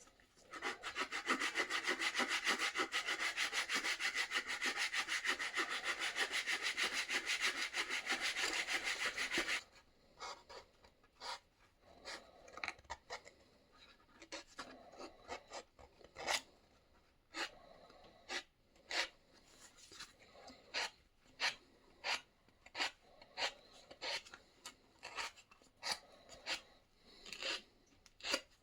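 Hand-worked rubbing strokes on the axe. First comes a fast, continuous back-and-forth rubbing for about nine seconds, then it stops abruptly and gives way to slower single strokes, roughly one a second.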